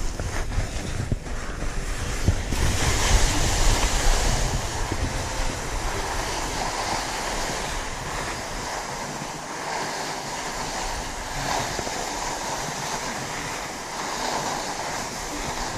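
Skis hissing and scraping as they slide over spring corn snow, with wind buffeting the camera microphone in low rumbles. Loudest a few seconds in, then settling into a steadier rushing hiss.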